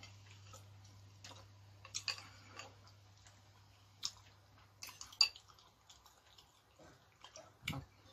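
Metal spoon clicking and scraping against a bowl and a stewed beef foot, a handful of sharp clicks spread out, the loudest about five seconds in, with soft chewing between them. A low steady hum runs underneath.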